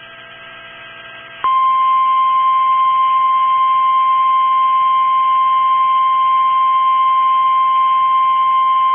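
NOAA Weather Radio 1050 Hz warning alarm tone, a single loud steady beep. It starts suddenly about a second and a half in, after a faint broadcast hum, and holds unbroken to the end. It is the signal that a warning message follows.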